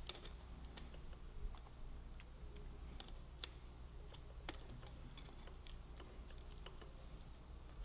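Faint, scattered sharp metallic clicks of needle-nose pliers working a steel cotter pin, bending its ears back around on a brake master cylinder clevis; the loudest click comes about three and a half seconds in. A faint steady low hum lies underneath.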